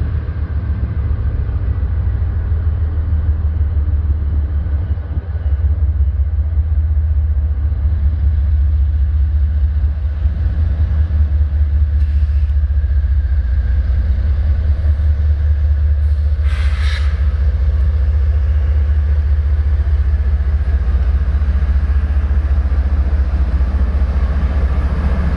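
GE ES44AC diesel-electric locomotive's V12 diesel engine working as it pulls a long train away, a steady deep rumble that grows as the unit comes past.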